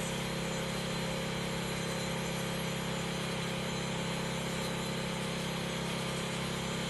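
A crack chaser's motor running steadily as it opens up a crack in concrete, a constant hum that holds one pitch throughout.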